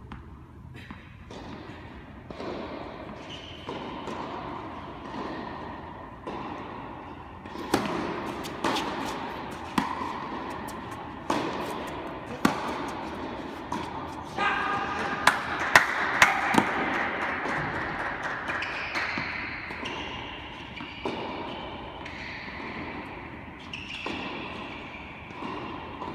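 Tennis ball being hit back and forth in a rally on an indoor court: sharp racket strikes and ball bounces about once a second from about eight seconds in, ringing in the hall. Voices call out near the middle of the rally and again after it ends.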